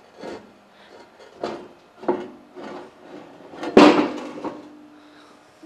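Heavy cast-iron drill press table scraping and knocking as it is slid off the drill press onto a steel utility cart: a string of clunks, the loudest about four seconds in, followed by a short metallic ring.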